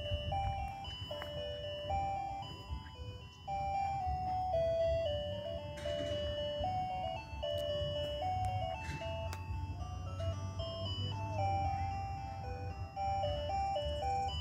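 Ice cream truck jingle: a simple electronic melody of single held notes played over the truck's loudspeaker, with a steady low rumble underneath.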